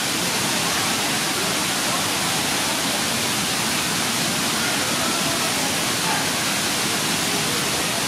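Steady rush of water from a waterfall and river, an even hiss at a constant level, with faint distant voices.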